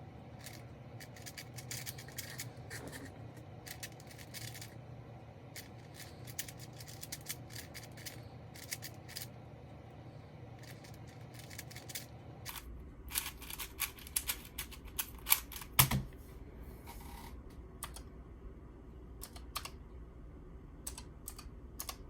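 Plastic speedcube being turned by hand: irregular runs of quick clicks and clacks as the layers snap round, densest and loudest a little past the middle.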